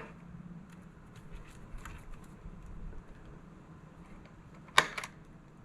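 Workshop handling noises as tools and a workpiece are set up for drilling: light scattered clicks and rustles over a faint low hum, with one sharp knock nearly five seconds in.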